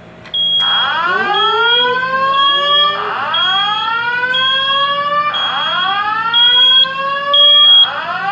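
Fire alarm sounding after a manual pull station is activated: a repeating rising whoop tone about every two and a half seconds, with a high beep pulsing on and off about once a second. It starts suddenly a moment in, the sign of the system going into alarm.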